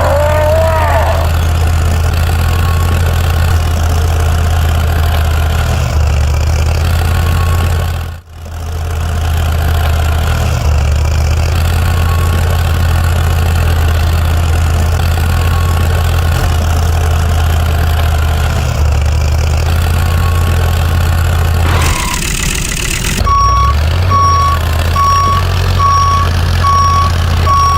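Mini truck's engine running with a steady low hum; about 23 seconds in a reversing alarm starts beeping, about two beeps a second.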